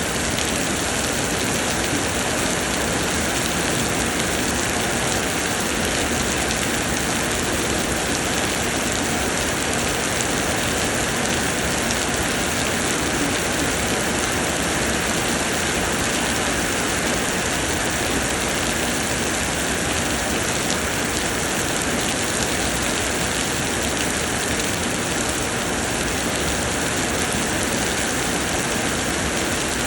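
Summer rain pouring down in a steady, even hiss, with no let-up or single drops standing out.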